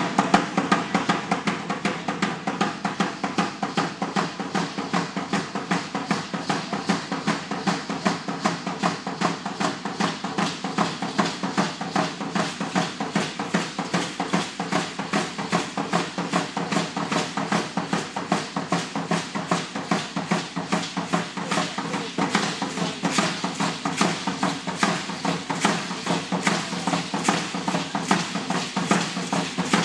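Percussion for Aztec danza: a fast, steady drumbeat with the rattling of the dancers' ankle rattles, going without a break.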